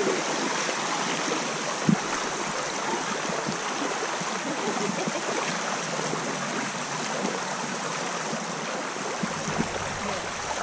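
Shallow creek water running over a rocky riffle, a steady rushing, with one brief thump about two seconds in.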